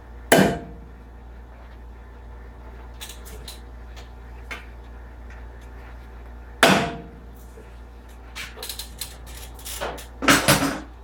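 Hammer blows on steel while beating out a factory ball joint rivet in a GMC K1500 lower control arm: two heavy ringing strikes about six seconds apart, then a quick flurry of hits near the end, with light metallic clinks in between.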